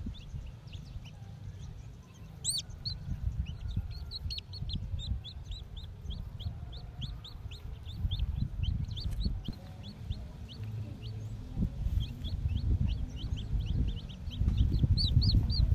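Young chicks peeping over and over: short, high, falling peeps, a few a second, louder near the end. Underneath is a low rumble that swells near the end.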